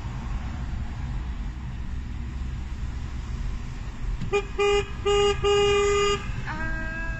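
Car horns honking over the steady rumble of a car cabin on the move: four blasts, the last and longest about a second long. Then a second, lower-pitched horn sounds near the end and drops off.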